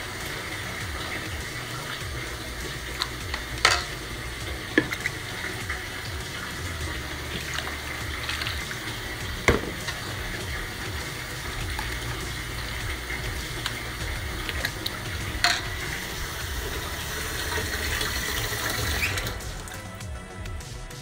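Water churning and sloshing in a steel tub, a steady rushing wash with a few sharp knocks against the tub.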